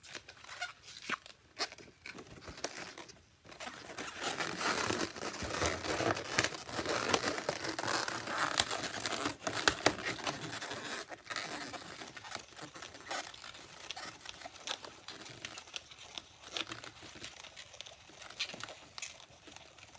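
Latex twisting balloons being handled and twisted into small bubbles: rubbing and crinkling noises with scattered small clicks, busiest from a few seconds in to about halfway through, then quieter.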